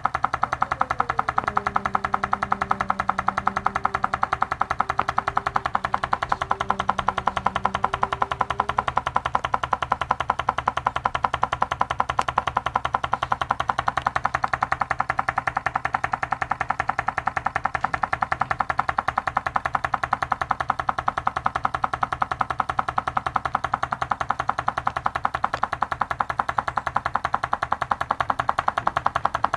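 Homemade candle-heated Stirling engine running steadily, its flywheel and linkage making a rapid, even ticking rattle on every turn.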